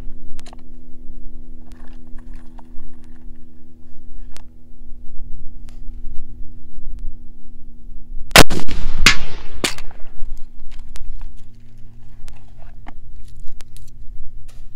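A single shot from a muzzle-loading M1854 Lorenz percussion rifle-musket about eight seconds in, trailing off for about a second and a half. Light metallic clicks and knocks of the rifle being handled come before and after it, over a steady low hum.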